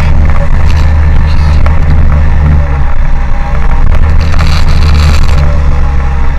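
Engine of the vehicle carrying the camera, running with a loud, steady low rumble as it rolls slowly. The rumble eases off briefly about two and a half seconds in and again near five and a half seconds.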